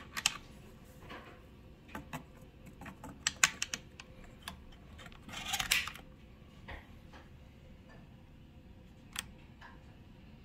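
Shotgun action being handled: scattered sharp metallic clicks and clacks, with a longer scraping rasp about five and a half seconds in.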